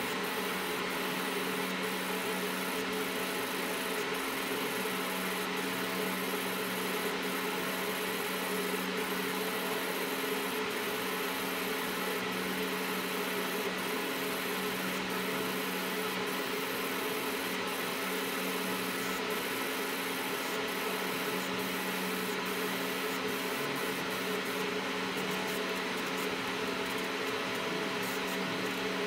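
Fiber laser marking machine with rotary attachment running while it marks a metal rod: a steady hum with a hiss, and faint ticks about once or twice a second that come faster near the end.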